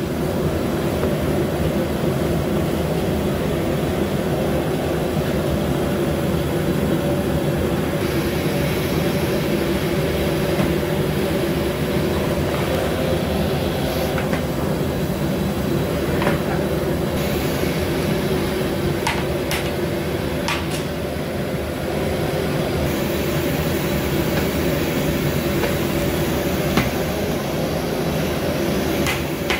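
Steady low roar of a large gas burner firing under a big cooking pot of rice, with a few sharp knocks of a long-handled ladle against the pot as it is stirred in the second half.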